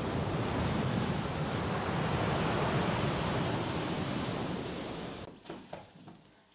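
Sea surf breaking and washing onto a sandy beach, with wind rumbling on the microphone. The surf sound cuts off suddenly about five seconds in, and a few faint knocks and rustles follow.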